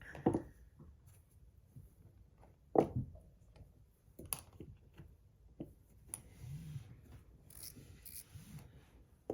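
Small fidget toys being handled and put away: a few light knocks and clacks as pieces are set down, with soft rubbing and rustling between them.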